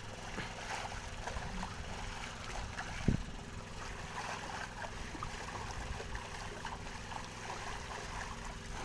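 Water splashing and sloshing as a long-handled dip net is swept through the sea surface beside a boat, with a single sharp knock about three seconds in. A low steady hum runs underneath.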